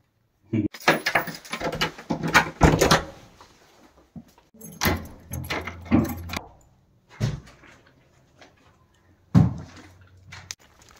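A door being handled and locked with a key, with keys jangling on their ring and the lock clicking. Bursts of clicks and knocks come in several clusters with short pauses between them.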